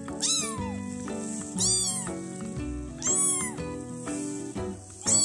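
Young silver-grey tabby kitten meowing four times, high thin cries about a second and a half apart, each rising and then falling in pitch. Background music plays underneath.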